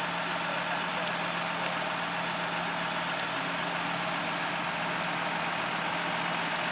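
Heavy diesel farm machinery of a maize silage harvest running steadily: a constant engine hum under a dense, even mechanical noise.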